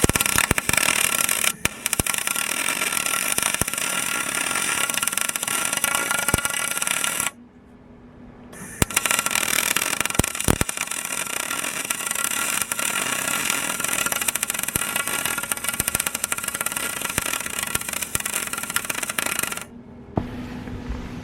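Electric arc welding on an aluminum van roof cross member: the arc runs as a dense crackling hiss for about seven seconds, stops briefly, then runs again for about eleven seconds before cutting off near the end.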